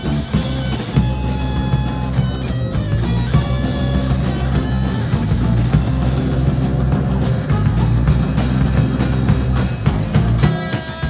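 Live rock band playing an instrumental passage without vocals: electric guitars over a drum kit. The low end thins out briefly near the end.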